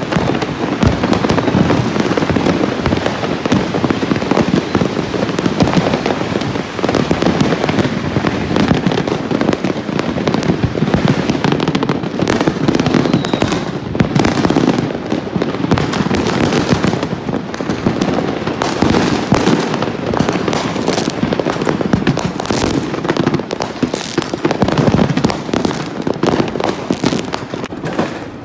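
Many fireworks going off at once: aerial shells bursting and firecrackers crackling and banging in a dense, unbroken barrage.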